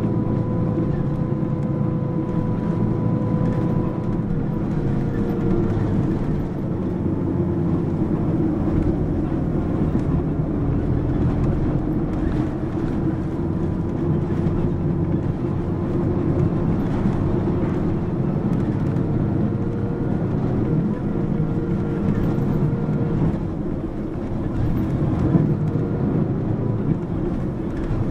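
Mitsubishi Fuso PA-MK25FJ city bus running along, with its diesel engine and drivetrain giving a steady low drone. A faint whine fades out after a few seconds and comes back past the middle.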